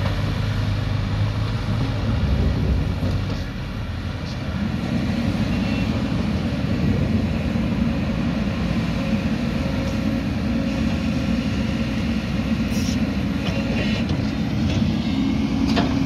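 Diesel engines of a backhoe loader and a crawler excavator working soil, a steady low drone that dips briefly about four seconds in and then evens out.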